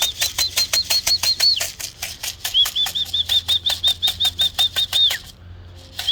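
A pigeon fancier whistling to call young pigeons home to the loft: two fast runs of short, high whistled notes, about six a second, each with a sharp click, with a short break between the runs.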